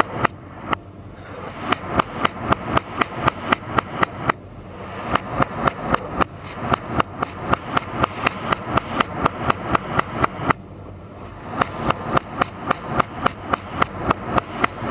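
Knife chopping a vegetable on a cutting board in a fast, steady rhythm of about four to five strokes a second, pausing briefly twice.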